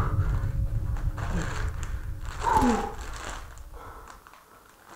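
Plastic crisp packet crinkling as it is handled, over a low rumble that fades away by about four seconds in, with a short falling vocal sound about two and a half seconds in.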